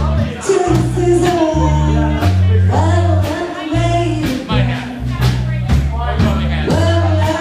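Live band playing amplified: a woman sings lead into a microphone over electric guitars, a bass line that moves in held low notes, and steady drums.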